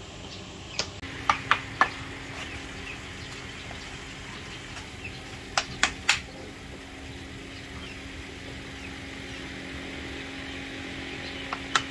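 Scattered sharp knocks in small groups of two or three, about a second in, around the middle and near the end, over a steady low hum that sets in about a second in.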